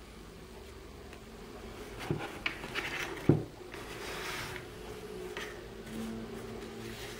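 A deck of game cards is handled and put down on a tabletop, with a sharp knock about three seconds in. Then the cards slide and spread across the table, making short soft hisses and clicks.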